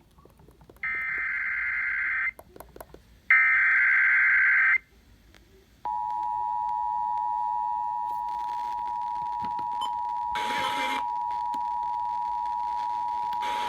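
Emergency Alert System test: two screeching SAME digital header bursts, each about a second and a half long. About six seconds in, the steady EAS two-tone attention signal (853 and 960 Hz) comes on and holds, with a couple of brief noisy crackles over it.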